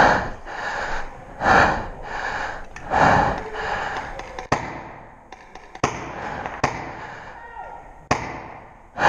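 Hard, gasping breaths about every second and a half, then four sharp cracks a second or so apart, fitting shots from a magfed paintball marker.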